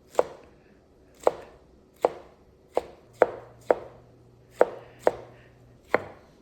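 Kitchen knife chopping on a cutting board: about nine single, unhurried strokes at an uneven pace.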